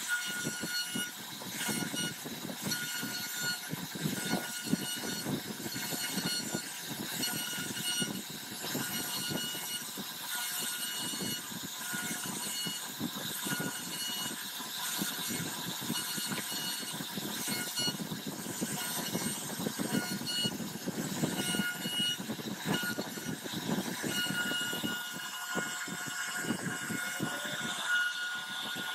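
CNC router spindle whining at a steady high pitch while its carving bit cuts into a wooden panel, with an uneven rasping of the cutter through the wood underneath.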